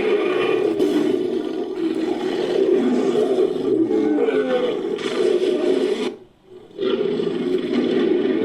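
Sound-effect monster roars made by layering big-cat and ape roar recordings: one long growling roar, a brief break about six seconds in, then a second roar.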